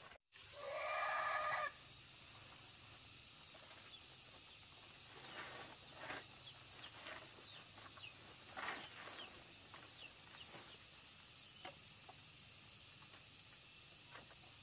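A rooster crows once, a loud call of about a second near the start. Faint scattered taps and short high chirps follow over a steady faint high tone.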